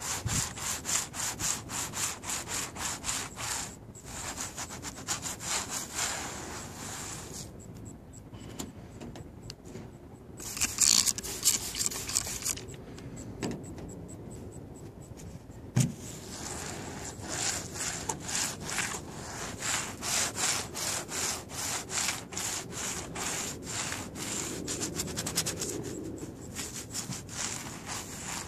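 Fine-grade Speedy Prep synthetic clay towel rubbed back and forth over lubricated car paint, a gritty scraping at about three strokes a second. The roughness is bonded contamination being pulled off paint that has not been clayed in almost 15 years. The strokes thin out midway, and there is a single knock about sixteen seconds in.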